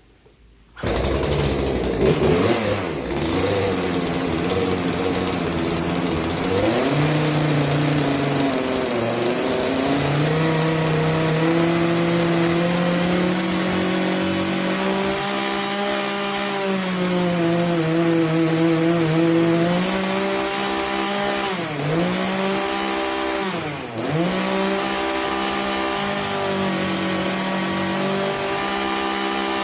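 Craftsman two-stroke chainsaw engine running at high throttle while the high-speed jet of its carburetor is turned, changing the fuel mixture; the saw had been bogging and struggling at the high end. The engine comes in abruptly about a second in, its pitch wanders and climbs as the jet is adjusted, and it dips briefly twice near the end.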